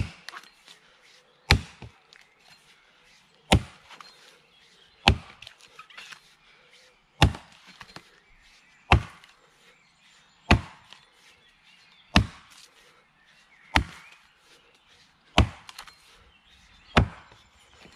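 Axe chopping into the trunk of a standing tree: ten sharp strikes, one about every one and a half to two seconds.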